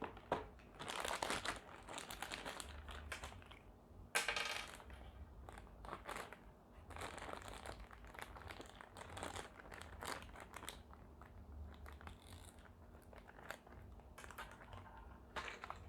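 Thin plastic packaging bags crinkling and rustling in irregular bursts as they are handled and opened.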